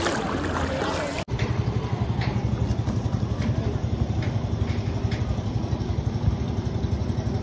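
Briefly water noise, then, after an abrupt cut, an engine running steadily at idle with a fast low throb.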